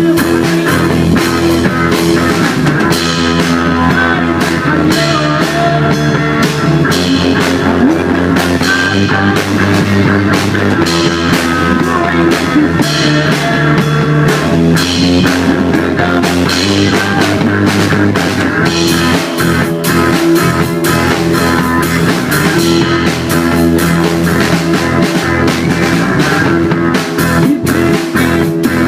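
Rock music: electric guitar over a drum kit, playing steadily and fairly loud throughout.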